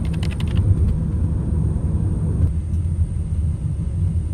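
Steady low rumble of road and engine noise heard from inside a moving taxi.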